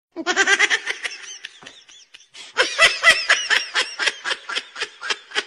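A person laughing hard in quick ha-ha pulses: a short burst at the start, then a longer run from about two and a half seconds in.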